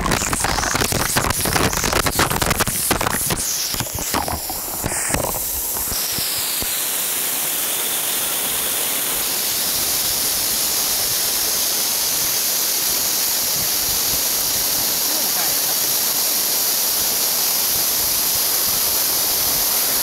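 Waterfall water pouring straight onto the camera, a dense crackling splatter for the first five seconds or so, then giving way to the steady rushing of the falls.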